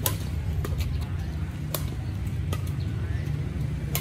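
Badminton rackets hitting a shuttlecock back and forth in a rally: several sharp, crisp hits about a second apart. A steady low rumble of traffic runs underneath.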